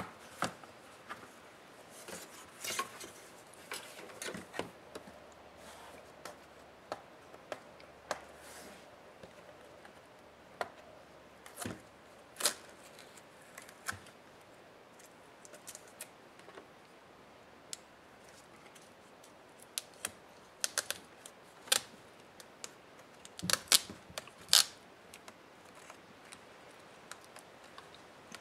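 Irregular small clicks, taps and scrapes of hands and a small tool handling the plastic and metal parts of a laptop's display assembly, with a cluster of sharper clicks about 20 to 25 seconds in.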